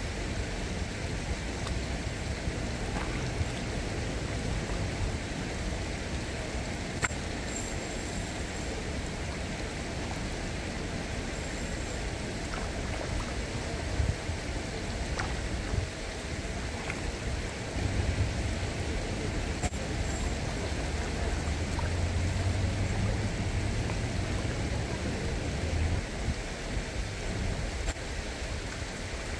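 Steady outdoor ambience of a city riverbank: a hiss of flowing water over a low rumble of distant road traffic, the rumble swelling for several seconds past the middle, with a few faint clicks.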